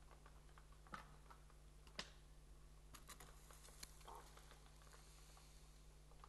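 Near silence over a steady low electrical hum, broken by a few faint sharp clicks about one and two seconds in and a quick run of clicks around three seconds in. One faint, short bird call comes about four seconds in.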